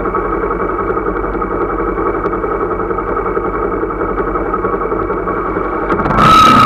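Vehicle engine idling steadily in stopped traffic. About six seconds in, a sudden, much louder rush of noise starts as the traffic moves off.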